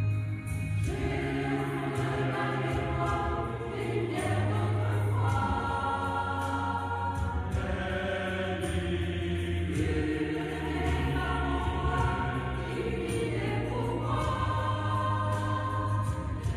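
Mixed choir of women's and men's voices singing in parts, over a sustained low bass note that shifts every few seconds.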